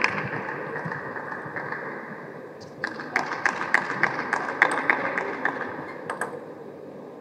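A run of about a dozen sharp, irregular taps, starting about three seconds in and stopping a second before the end, over a steady hall hum.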